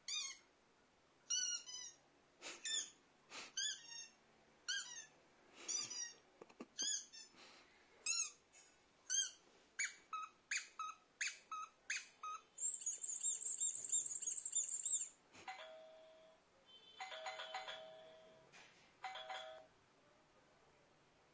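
Prank sound effects played through a small speaker: a string of short, high squeaky chirps that come faster toward the middle, then a warbling trill, then a doorbell chime sounding three times.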